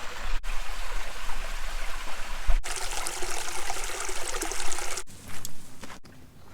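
A small waterfall with only a little water flowing, trickling and splashing. The sound jumps abruptly several times: it is louder and brighter in the middle and fainter near the end.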